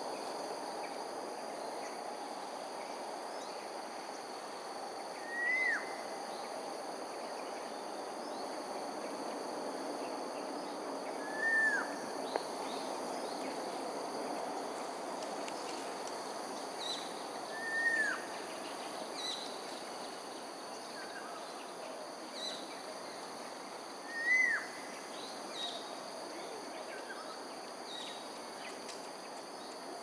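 Grey-headed fish eagle calling: a short, loud note that lifts briefly and then falls away, heard four times about six seconds apart. A steady high insect chorus runs underneath, with fainter small bird chirps in between.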